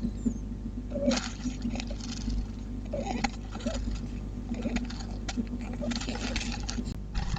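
Sleeping squirrel snoring: short, soft snores with little squeaky rising notes, coming irregularly every second or two, over a steady low hum.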